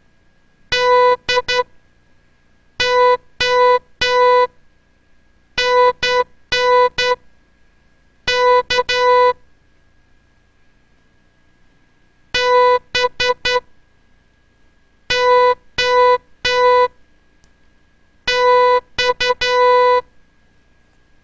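Morse code sent as a steady electronic beep, long dashes and short dots keyed on and off at a slow, beginner's pace. The beeps form two short practice words, letters spaced about a second apart, with a longer pause between the words.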